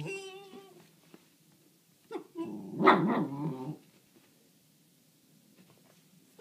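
A dog vocalizing at a rabbit it sees outside. A pitched whine trails off in the first second. About two seconds in comes a short yip, then a drawn-out bark lasting over a second.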